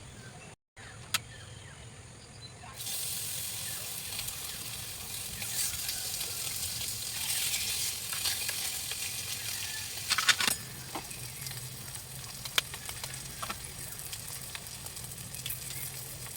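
Food sizzling and crackling as it fries in a pan. The sizzle starts suddenly about three seconds in, with a few sharp clicks.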